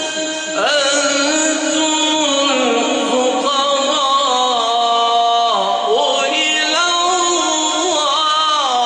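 Male Quran reciter chanting in the melodic mujawwad style, drawing out long held notes with slow, ornamented rises and falls in pitch.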